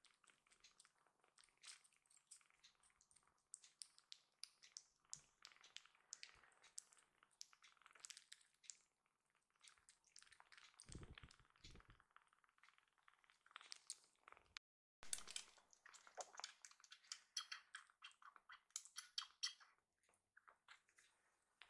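Faint crackling and small clicks of close handling: a hand stroking and holding tiny kittens on a fleece blanket, with a few soft low thumps about eleven seconds in.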